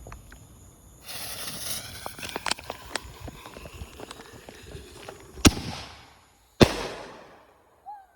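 Consumer firework going off: a hissing, crackling spray with many sharp pops from about a second in, then two loud bangs about a second apart.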